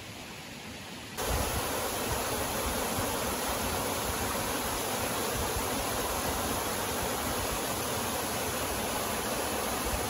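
A small waterfall and rocky stream rushing steadily, cutting in abruptly about a second in after a quieter hiss.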